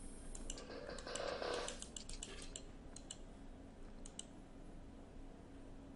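Faint, irregular clicking from a computer being operated, with a quick run of clicks in the first three seconds and a couple more about four seconds in, over a faint steady low hum.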